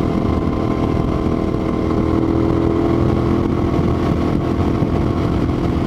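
2008 United Motors V2S 650R motorcycle engine holding a steady highway cruise at about 70 mph, heard through a helmet microphone with heavy wind rumble.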